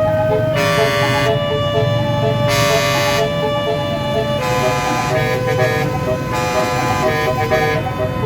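Tour bus's basuri melody horn playing a tune, stepping from note to note, with four louder blaring horn blasts over it, each under a second long. A diesel engine runs underneath.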